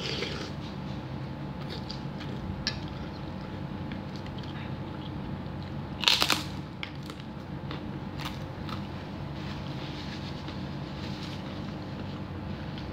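Eating sounds: a loud crunchy bite into a cracker about six seconds in, with a few small clicks and quieter chewing around it over a steady low hum.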